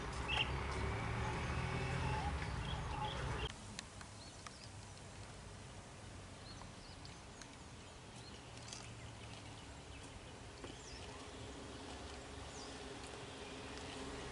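Low engine rumble of a three-wheeler tuk tuk and a car driving on the road, with a few short bird chirps. About three and a half seconds in it cuts off suddenly to quiet outdoor air with faint chirps.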